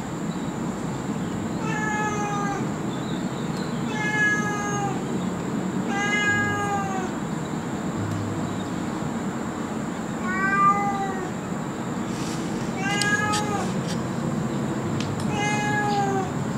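Domestic cat meowing repeatedly: six drawn-out meows, each about a second long and rising then falling in pitch, coming about every two seconds with a longer pause in the middle.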